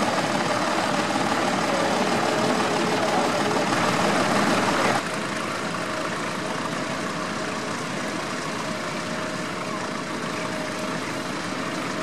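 Vintage tractor engines running steadily while pulling ploughs. About five seconds in, the sound drops suddenly to a quieter, steady engine note from a second tractor.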